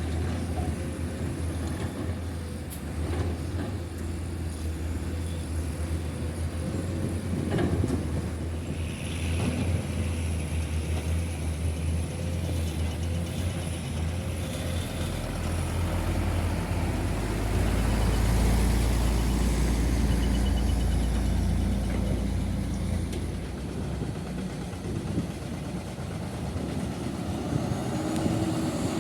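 Diesel engines of heavy earthmoving machinery running steadily, with a few sharp knocks. About halfway through, a deeper, louder rumble swells for several seconds and then eases off.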